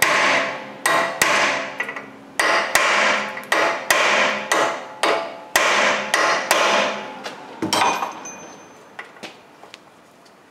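Sharp, ringing metal-on-metal hammer blows on a driver set in a tight brake-rotor retaining screw, struck repeatedly to shock the screw loose. There are about a dozen blows, often in quick pairs. They stop about three-quarters of the way through, and a few faint ticks follow.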